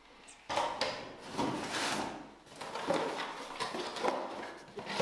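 Cardboard packaging being handled: a small cardboard box sliding, scraping and rustling as it is pulled out and turned over, with a few knocks, in several bursts from about half a second in.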